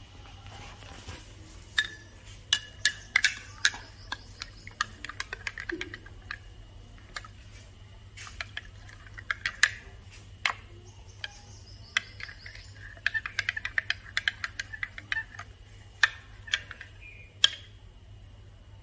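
Metal spoon clinking against a glass tumbler while stirring turmeric powder into water: runs of quick, sharp ringing taps with short pauses between the runs.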